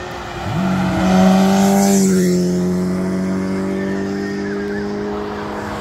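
Motorcycle engines running hard at high revs as the bikes pass at high speed. The engine note climbs sharply, is loudest with a rush of road noise around the pass, then drops slightly in pitch and holds steady. Faint rising and falling siren tones come in near the end.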